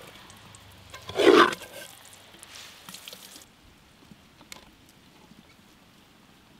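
Thick yellow lollipop syrup being poured from a steel container into a clay pot, with a loud wet glop about a second in, then a softer pour.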